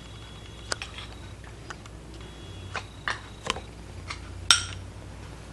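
Light, scattered clicks and taps of kitchenware being handled, with one louder, brief clink or scrape about four and a half seconds in.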